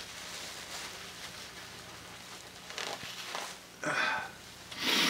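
Rustling and crinkling of a disposable paper pad handled around the face, with a few short louder bursts in the second half, the loudest just before the end.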